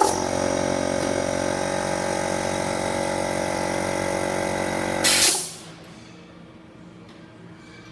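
A machine motor starts with a click, runs steadily for about five seconds, then stops with a short burst of hiss.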